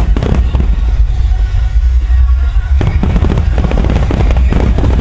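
Music-synchronised fireworks display: a rapid run of shell bursts booming and crackling, thickening about three seconds in, with the show's music playing along.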